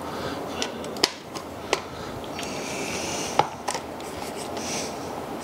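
A few sharp clicks and taps from the hardware and plastic of a mini dirt bike's front number plate being fitted and fastened by hand, with a soft rustle partway through.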